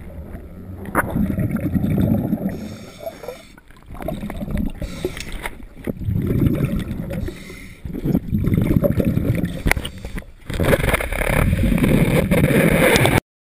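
Muffled underwater bubbling rumble heard through a camera housing, coming in repeated surges of a second or two with short gaps, typical of a scuba diver's exhaled breath, with sharp knocks on the housing. The last surge, near the end, is the loudest and brightest, then the sound cuts off suddenly.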